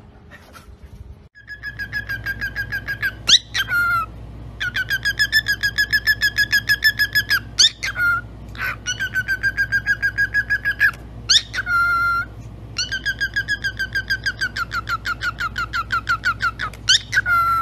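Cockatiel giving long runs of rapid, evenly pulsed high chirps, about five a second, broken now and then by short rising whistles and brief held notes.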